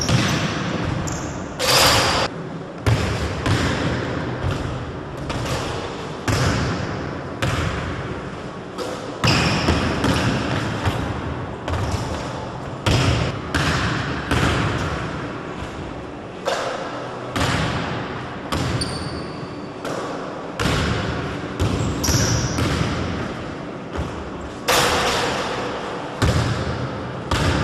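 Basketball dribbled on a hardwood gym floor, about one bounce a second. Each bounce echoes through the large hall.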